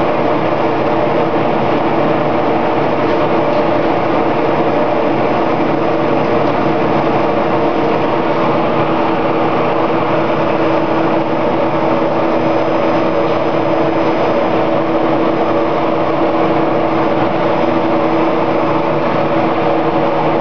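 BT-60 sawdust briquetting press running: a steady mechanical drone with a constant hum, even in level.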